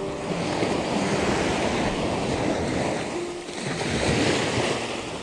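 Small waves breaking and washing on a sandy beach at the shoreline, with a dip and then a fresh surge of wash a little past halfway.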